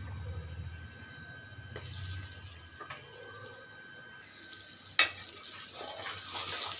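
Hot oil sizzling in a kadai as spices are tempered and stirred with a metal spatula, swelling near the end, with one sharp metal clink about five seconds in.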